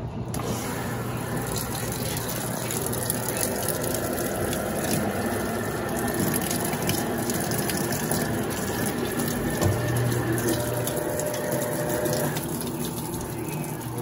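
Water pouring from the dispenser of a Brastemp BWL09A top-load washing machine into its stainless drum as the machine fills. A low motor hum comes in about two-thirds of the way through as the basket starts to spin.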